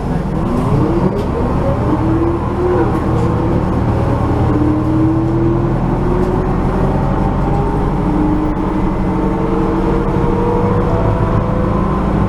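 Steady engine and road rumble inside a city bus driving along, with a drivetrain whine that rises in pitch, drops back and rises again several times as the bus accelerates.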